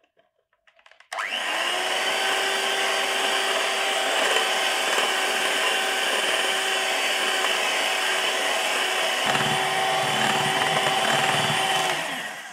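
Electric hand mixer switching on about a second in and running at a steady whine as its beaters whisk eggs and sugar in a glass bowl, then slowing and cutting off near the end.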